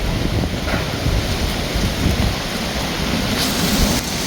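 Strong hurricane wind gusting with heavy rain falling, the wind rumbling on the microphone.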